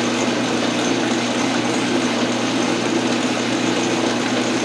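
Metal lathe running steadily with the chuck spinning: an even motor and drive hum with a steady whir.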